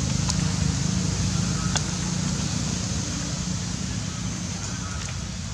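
Steady outdoor background noise: a low hum under an even hiss, with two short sharp ticks in the first two seconds.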